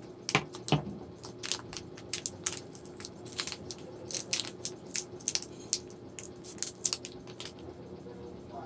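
Crinkling of a plastic twist-wrapped candy wrapper as fingers untwist and peel it open: an irregular run of small crackles. Two knocks, the loudest sounds, come near the start.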